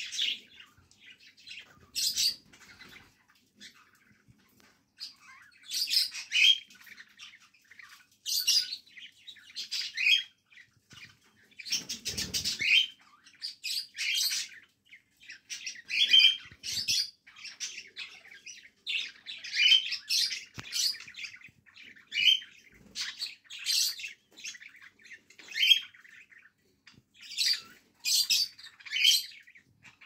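Cockatiel chicks calling in repeated short, harsh bursts every second or two, with a single low thump about twelve seconds in.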